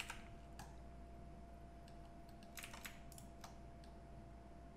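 A handful of faint, scattered computer keyboard clicks while working at a computer, over a faint steady hum.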